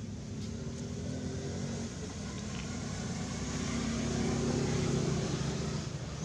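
A motor engine running steadily, its low hum swelling to a peak about five seconds in and then easing off, like a vehicle passing.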